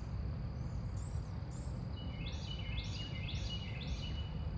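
Nature ambience: a steady low rush with birds calling over it. There are a few brief high chirps at first, then from about halfway a songbird repeats a short phrase about four times, roughly twice a second.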